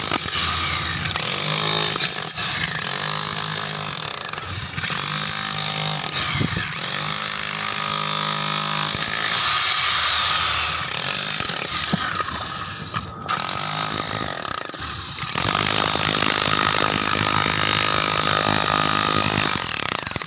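Power drill running continuously at a worksite, its motor tone shifting in pitch now and then, with a short dip about thirteen seconds in.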